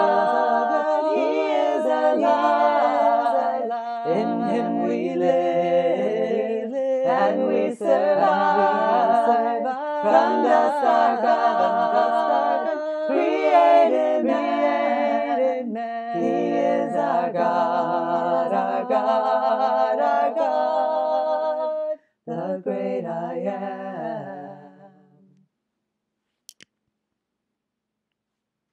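Hymn sung a cappella in close four-part harmony by one woman's voice layered on four tracks, moving through sustained chords. Near the end the voices break off briefly, then a final chord fades away.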